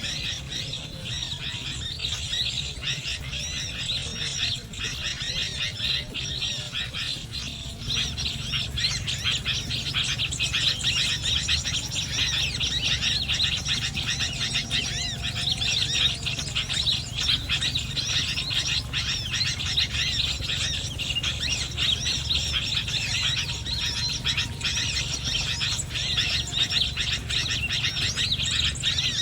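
Small birds twittering and chirping continuously, a dense run of rapid high notes, over a steady low hum.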